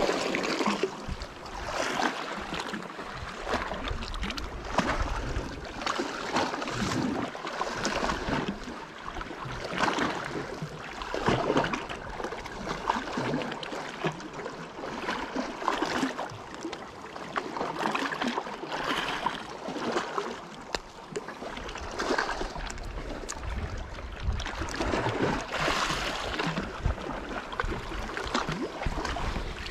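Sea water sloshing and splashing against the rocks below, rising and falling unevenly, with irregular rustles and bumps of clothing and handling close to the microphone.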